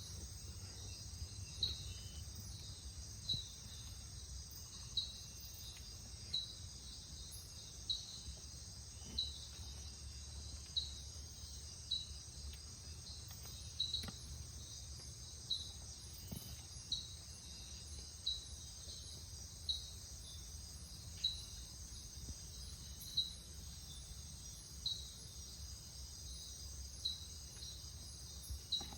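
Night insect chorus, a steady high-pitched trill, with a short high chirp repeating about every second and a half and a low hum underneath.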